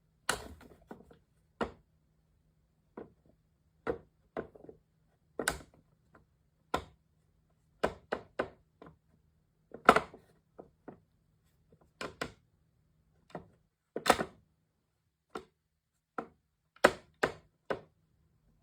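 A series of sharp knocks and thuds, about two dozen at uneven intervals, with short silences between.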